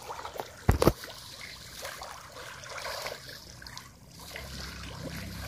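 Water trickling and lapping as a crowd of pacu (bawal) stirs and splashes at the surface of a pond. Two sharp knocks, close together just under a second in, are the loudest sounds.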